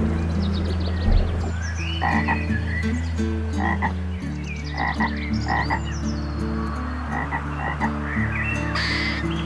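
Frogs croaking, short calls repeating about once a second.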